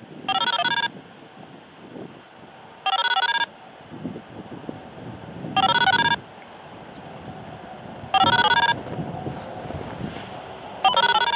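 Scanner radio sounding short strings of DTMF control tones, the kind used to set off and control outdoor warning sirens. Five bursts, each just over half a second of quickly stepping tones, come about every two and a half seconds.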